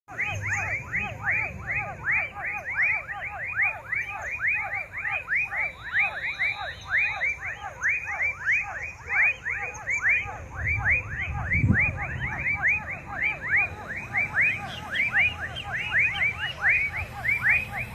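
Dusk chorus of many small animals calling at once: short chirping calls repeated several times a second, overlapping without pause, with a faint steady high whine behind them.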